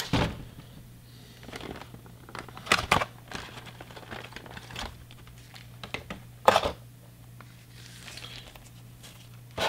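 Clear plastic packaging crinkling and crackling as it is handled, with a model car's clamshell tray and thin plastic sleeve being opened. It comes in several separate crackles, the loudest about two-thirds of the way through, over a faint steady low hum.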